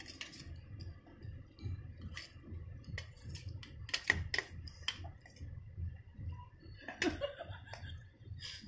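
Scattered light clicks and taps, a few at a time, over a low rumble.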